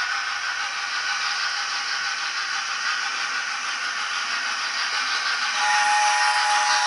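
Steam sound from a model A4 steam locomotive's DCC sound decoder playing through its small speaker: a steady steam hiss. About five and a half seconds in, it turns louder as a several-note chime whistle starts to sound.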